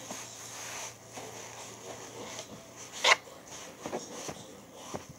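Light rubbing and handling sounds over a steady hiss, with one sharp click about three seconds in and a couple of fainter clicks after it.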